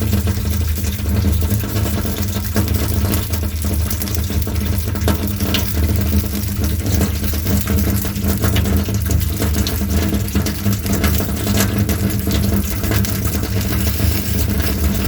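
Designed fire-and-water fight sound effect: a steady rush of water over a low rumble, with scattered crackles through it.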